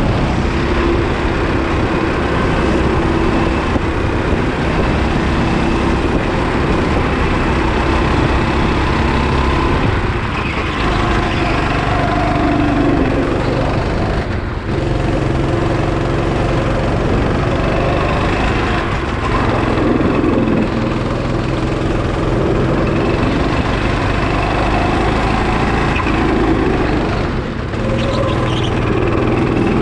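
Go-kart engine running at high revs, heard from on board, the pitch rising and falling as the driver lifts off and accelerates; the revs drop briefly about halfway through and again near the end.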